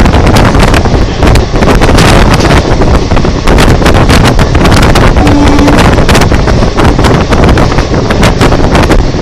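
Express train passing close at speed: a loud, steady rushing noise with irregular knocks, and heavy wind buffeting on the microphone.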